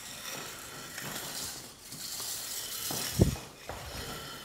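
Diamond stone held in a side-edge guide, scraping along a ski's steel edge with a steady gritty hiss as it smooths off the roughness left by the file. A dull knock about three seconds in.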